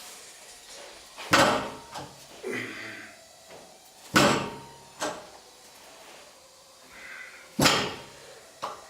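Three loud knocks about three seconds apart, each followed by a smaller knock about a second later.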